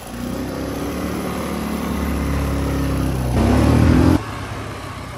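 Quad bike engine running under throttle, its pitch rising as it revs up about three and a half seconds in, then dropping off sharply to a quieter run.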